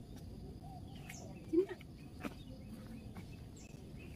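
Quiet outdoor ambience with a few short, high, falling bird chirps. A brief low sound about a second and a half in is the loudest thing, and a single click follows a little after two seconds.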